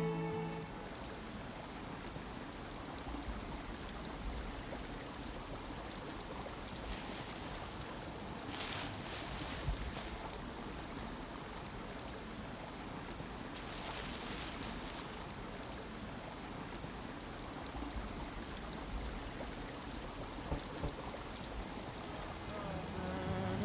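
Steady rushing noise like a running stream, with two short bursts of scratchy rustling about nine and fourteen seconds in.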